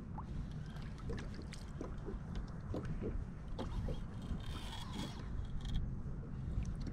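Small waves lapping and slapping against a fishing kayak's hull, with wind rumbling on the microphone and scattered small clicks and plops. A brief hiss rises about two-thirds of the way in.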